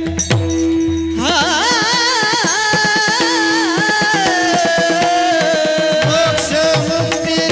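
Varkari kirtan singing: a man's voice comes in about a second in, climbs and holds a long high note with a wavering vibrato, over a mridang beat and a steady drone note.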